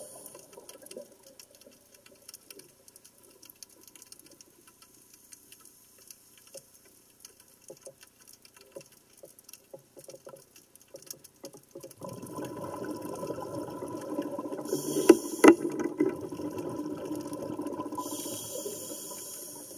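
Underwater sound: faint scattered crackling clicks, then about twelve seconds in a rush of air bubbles through the water, with a couple of sharp knocks about three seconds later.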